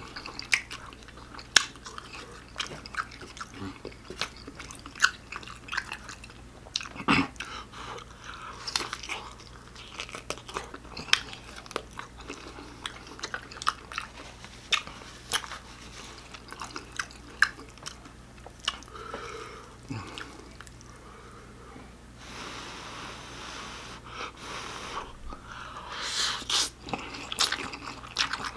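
Close-miked chewing of instant ramen noodles: wet mouth clicks and smacks come in quick irregular succession. Near the end comes a louder run of noodle slurping.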